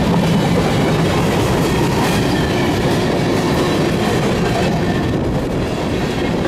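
Freight train rolling slowly past on the rails: a steady, loud rumble of wheels on track.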